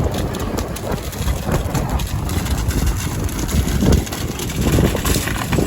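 Heavy engine running steadily with a low rumble.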